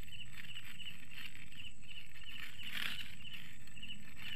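Night insects, crickets or similar, chirping in a steady high pulse of about three chirps a second, over a steady low rumble. A brief crinkle of a plastic food wrapper comes about halfway through.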